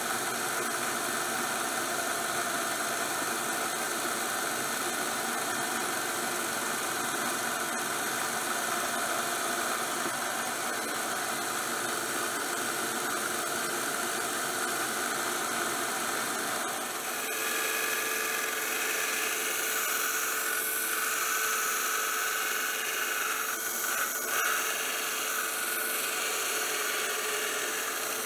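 A power tool runs steadily in a metal shop, with a high squealing edge. About two-thirds of the way through the sound shifts as a metal-cutting saw works through the leaf-spring steel.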